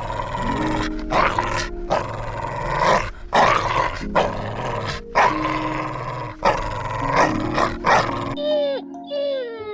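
Dog barking in loud, repeated calls over background music; about eight seconds in, a cat starts meowing, several calls that fall in pitch.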